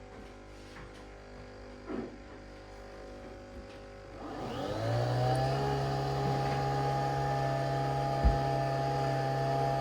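Nespresso Vertuo Next coffee machine starting to brew. About four seconds in, its motor spins up with a rising whine and then runs steadily, spinning the capsule to brew. There is a single knock near the end.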